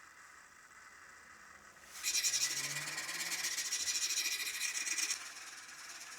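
Abrasive hand rubbing, like sanding or filing: one continuous rasping stroke starting about two seconds in and lasting about three seconds.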